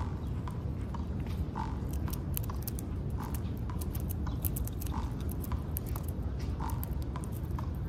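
Gray squirrel gnawing and crunching a peanut in its shell close to the microphone: a quick, uneven run of small sharp cracks and crunches, thickest in the middle.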